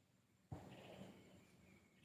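Faint outdoor nature ambience: small high chirps repeating about once a second, and about half a second in a sudden low rush of noise that fades over a second.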